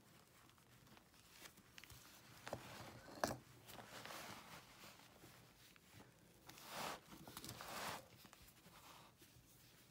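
Hands crumbling and squeezing a heap of dried cleaning-paste shavings and chunks: quiet, gritty crunching and rustling of chalky powder. There is a sharper crack a little over three seconds in and louder rustling around seven seconds.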